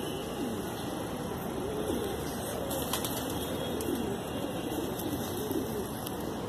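Domestic pigeons cooing, a low warbling coo repeated over and over.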